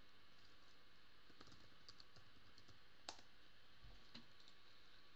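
Faint computer keyboard typing: a scatter of soft key clicks, with one sharper click about three seconds in, over low room hiss.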